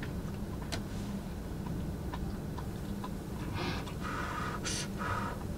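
A wooden spoon clicking and scraping against a stainless-steel cup and tray while food is served onto rice: a few light clicks, then several short scrapes in the second half, over a low steady hum.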